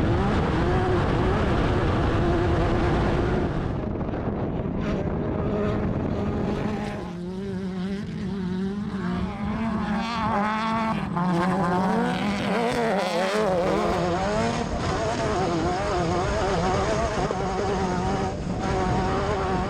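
Off-road race buggy engine running hard, its pitch rising and falling repeatedly as the throttle works on and off.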